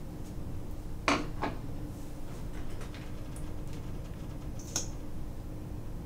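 A few small hard clicks and knocks of toiletries being handled at a bathroom mirror cabinet: two close together about a second in, and a sharper one near the end. A steady low hum runs underneath.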